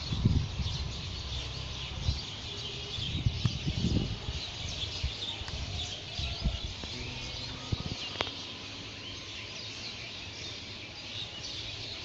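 Many small birds chirping and twittering together in a steady outdoor chorus. Low rumbling bumps from wind or handling on the phone's microphone come and go over the first few seconds, and there is a single sharp click later on.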